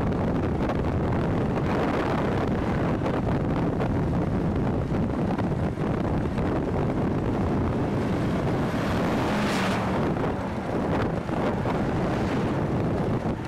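Heavy wind buffeting the microphone with road noise, riding along a road on a moving vehicle. An oncoming vehicle passes close about two-thirds of the way through, a brief swell in the noise.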